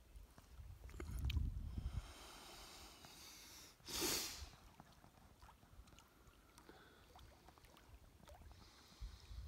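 A person close to the microphone draws a breath and gives one short, sharp sniff about four seconds in, over a faint low rumble in the first two seconds.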